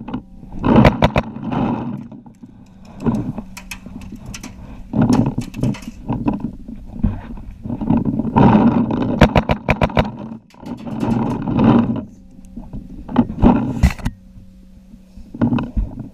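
Paintball markers firing in quick strings of sharp pops, about seven bursts with short pauses between them, over a loud rushing noise.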